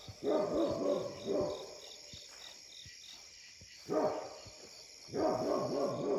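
Great Pyrenees barking at night in quick runs of barks, three bouts with pauses between them. Night insects chirp steadily behind, about three pulses a second.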